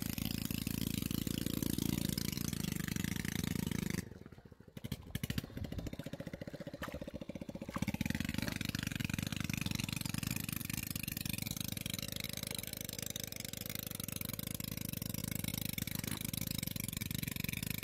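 A small engine running steadily with a fast, even low pulse. It drops away for a few seconds about four seconds in, with a few knocks, then comes back.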